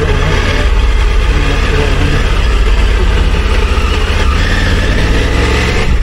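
Motorcycle engine running steadily while the bike rides along at low speed, with a steady rushing noise of wind and road over it.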